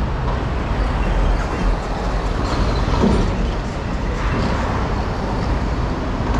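Steady city street traffic noise from vehicles on the road.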